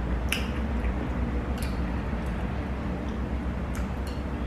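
Wooden chopsticks clicking against a bowl of udon noodle soup several times while eating, with the sharpest click right at the start. A steady low hum runs underneath.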